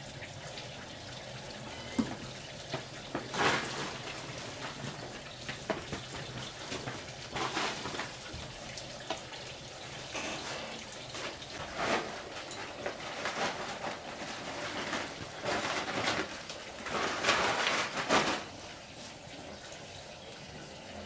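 Chopped banana stem being pressed and packed by hand into a large pot, in irregular wet rustling bursts a few seconds apart, the longest near the end.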